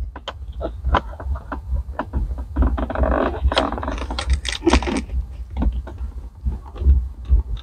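Carpet-covered side trim panel of a Mitsubishi 3000GT centre console being handled and worked into place: a quick irregular run of small plastic clicks and taps, with a stretch of rubbing and scraping about three seconds in.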